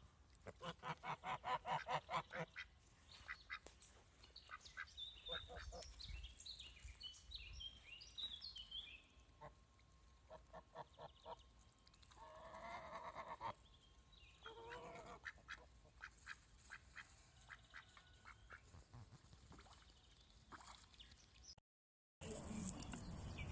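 Domestic ducks quacking faintly off and on, starting with a quick run of short calls, with scattered calls after and a longer call about twelve seconds in.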